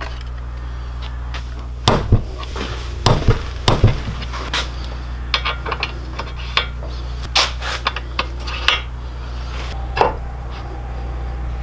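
Knocks and metallic clinks of small-engine assembly on a workbench: a rubber mallet tapping the piston into the cylinder, and metal engine parts being handled and set down, over a steady low hum.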